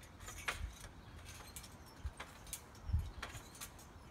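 A boy bouncing on a backyard trampoline: a few dull thumps of feet landing on the mat, the loudest about three seconds in, with faint short high clicks between them.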